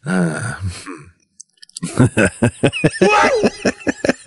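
Non-speech vocal sounds from a person: a falling drawn-out cry in the first second, then about two seconds of rapid choppy bursts in the manner of laughter.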